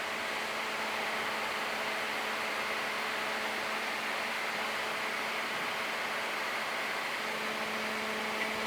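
Steady rushing noise on a Boeing 737-800 flight deck in the climb: airflow around the cockpit, with a faint steady hum running under it.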